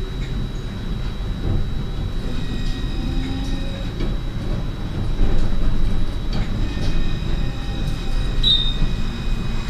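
Alstom Citadis 302 tram running along its track, heard from inside the passenger area behind the driver's cab: a low rumble with steady high-pitched whines, louder from about five seconds in, and a short squeak near the end.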